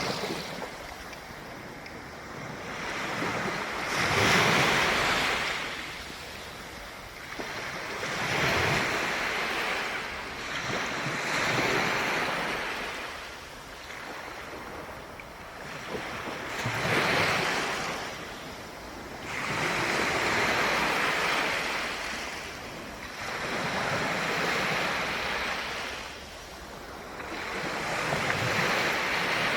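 Ocean waves breaking and washing up the shore, the surf swelling and falling every three to four seconds.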